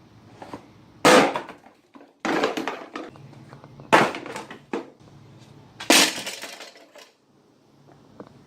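Four loud crashes a second or two apart, each followed by crunching and breaking: the front end of a Jeep Cherokee XJ being smashed, bending the hood, fenders and grille and breaking a headlight. A low steady hum runs underneath.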